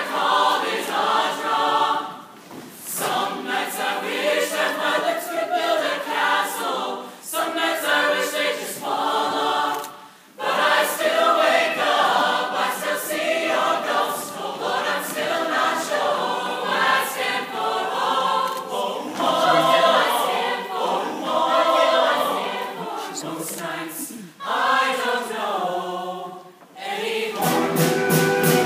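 High school show choir singing in phrases, with short breaks between them.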